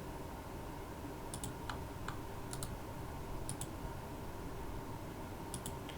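Computer clicks from a mouse and keyboard in use: about four sharp clicks, most in quick pairs, spread over a few seconds above a steady low background hum.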